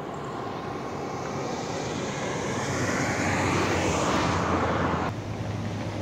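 A car passing on the road, its tyre and engine noise swelling to a peak about four seconds in, then cutting off suddenly just after five seconds.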